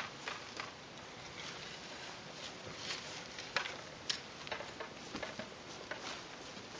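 Footsteps swishing through dry grass and weeds, with irregular light knocks and rattles from a wooden easel and a folding stool being carried.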